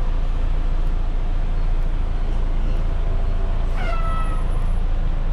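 Semi-truck's diesel engine running with a steady low rumble. About four seconds in comes one short, high squeal that dips slightly in pitch.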